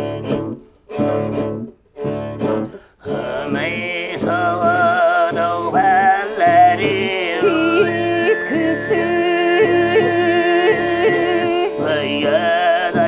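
Siberian throat singing: rhythmic pulses about once a second, then from about three seconds in a sustained vocal line with wavering overtones over a steady low pulse.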